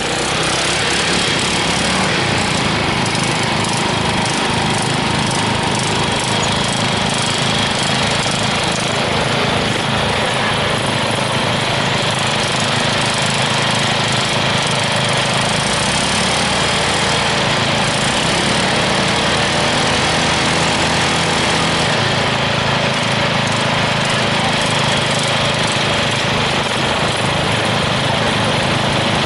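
Riding lawn mower's small engine running steadily while being driven.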